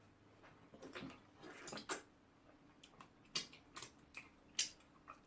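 Lip smacking and wet chewing from someone eating with an open mouth: a string of short, sharp smacks at an uneven pace, about seven of them.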